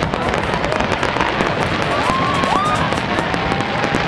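Fireworks display: a dense, continuous crackle of many small pops, with a few short rising whistles about two seconds in.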